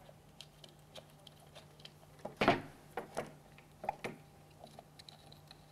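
Parts of a Raven direct chemical injection pump being handled on a tabletop: light clicks and taps, with a sharp knock about two and a half seconds in and a few smaller knocks after it.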